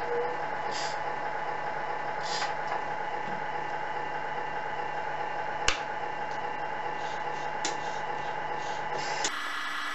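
Tamiya MFC-01 sound unit in an RC Scania truck playing a truck engine idle through the model's small speaker: a steady hum with a few short hisses and one sharp click about halfway through. It cuts off near the end.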